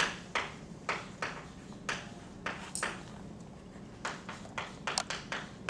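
Chalk tapping and scratching on a blackboard while writing: a string of short, irregular taps and brief strokes.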